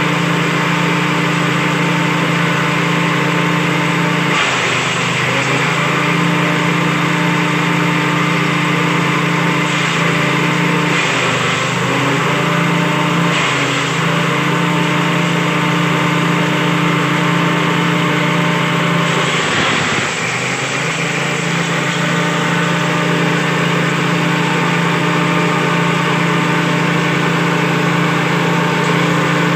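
Small single-cylinder petrol engine running a six-blade grass chopper steadily with no grass being fed. Its note sags briefly a few times, about 5, 11, 13 and 20 seconds in, and then recovers.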